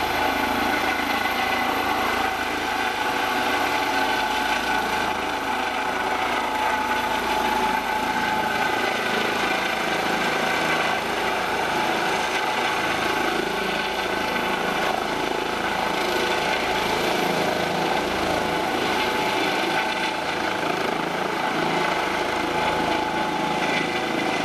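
Turbine engines and rotor of a medical trauma helicopter running steadily at high power as it lifts off and departs, with a constant high whine over the rotor noise.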